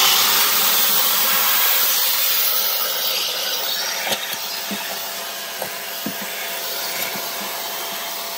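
Bissell Pet Hair Eraser vacuum cleaner running at full suction with a steady rushing hiss, with scattered small clicks and rattles as small acrylic scraps from a laser cutter are sucked up.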